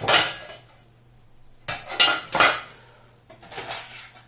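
Small metal kit parts clinking and clattering as they are picked up and gathered together on a table, in three bursts: at the start, about two seconds in, and near the end.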